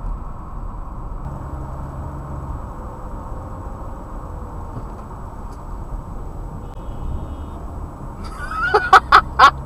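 Steady road noise inside a moving car. Near the end a car horn sounds from behind: about four short honks in quick succession, much louder than the road noise.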